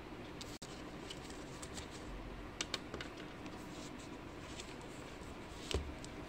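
Scattered light clicks and taps of a paper bookmark and a book being handled on a wooden desk, over a steady background hiss; a cluster of clicks a few seconds in and a louder knock with a dull thud near the end.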